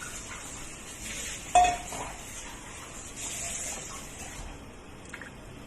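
A utensil clinks sharply against the cooking pot once, with a short ring, about a second and a half in, over the steady hiss of the pot of boiling water; a few faint ticks follow near the end.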